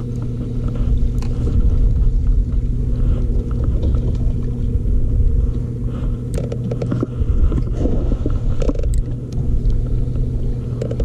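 Boat motor running with a steady hum over a low rumble. A few light clicks or knocks come about six and nine seconds in.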